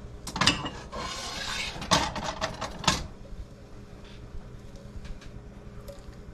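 A metal frying pan handled on an electric coil stove burner: a couple of clanks, about a second of scraping as it slides, then a quick run of knocks and clanks as it is set back down.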